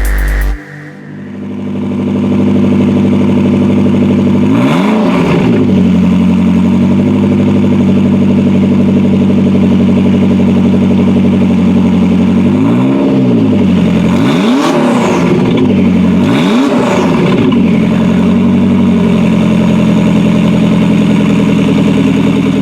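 Lotus Esprit V8 GT's twin-turbo V8 idling with a steady note, blipped once about five seconds in and three times in quick succession later on, each rev rising and dropping back to idle.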